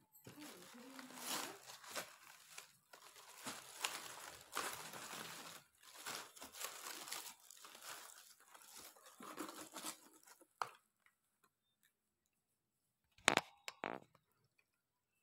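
Brown honeycomb kraft-paper packing wrap crinkling and rustling as it is pulled apart and handled. After a quiet pause, two or three short, sharp crackles come near the end.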